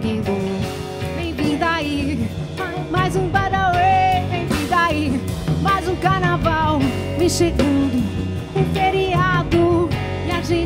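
Live pop-rock band playing: electric guitar, bass guitar and drum kit, with a woman singing.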